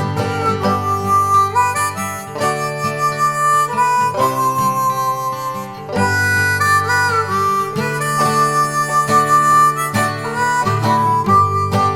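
Background music: harmonica playing melody lines over acoustic guitar.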